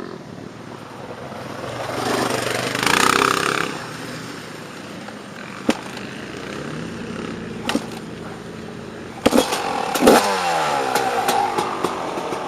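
Dirt bike engine being restarted after it stalled: a swell of engine noise about two seconds in, a few sharp knocks, then about ten seconds in the engine catches, revs briefly and settles into an idle.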